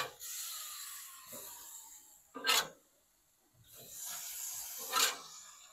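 Chicken breasts being flipped onto hot grill grates, three times over: each flip is a sharp clack followed by a sizzle that fades over a second or two. The first clack is the loudest.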